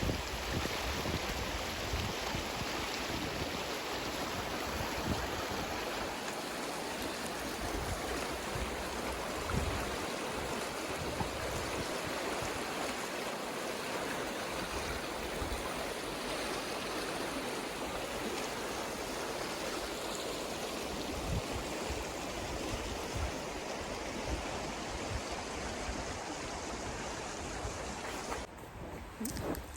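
Bow River flowing: a steady rush of running water that cuts off abruptly near the end.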